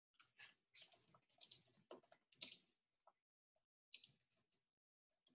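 Faint, irregular clicks and taps, coming in quick clusters with short pauses between them.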